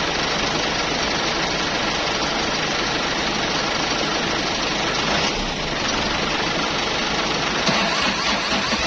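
A machine's engine running steadily with a dense, even mechanical noise, with a brief click near the end.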